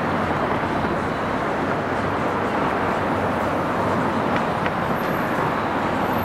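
Steady city street noise, mainly road traffic passing, an even, unbroken wash of sound.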